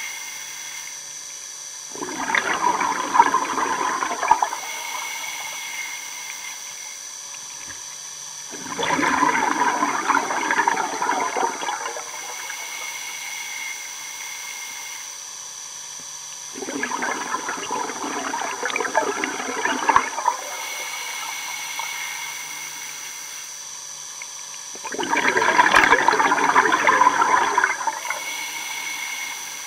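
Underwater exhalation bubbles from a scuba regulator: four gurgling bursts about eight seconds apart, at the pace of steady breathing. A quieter hiss of inhaling through the regulator comes between them.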